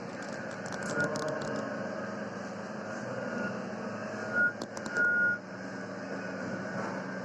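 Short high beeps of a vehicle's reversing alarm over a steady low rumble of machinery, the loudest beeps just after the middle. Bursts of light, sharp clicks come near the start and again around the middle.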